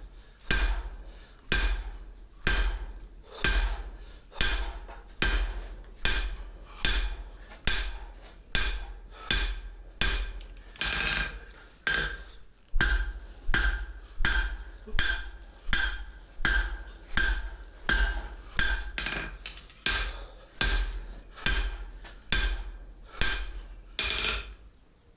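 Blacksmith's hand hammer striking hot steel on an anvil in a steady run of blows, each with a short metallic ring. The blows come a little over once a second and quicken slightly in the second half.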